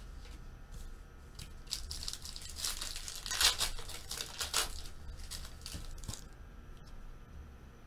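Foil wrapper of a trading-card pack being torn open and crinkled by hand: a run of crackling tears from a couple of seconds in, loudest near the middle, fading out by about six seconds.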